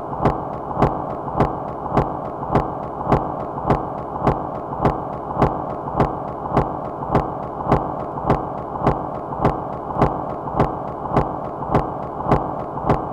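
Minimal micro-industrial noise music: an even, repetitive pulse of sharp clicks, a little under two a second, over a steady band of noise with a faint held tone.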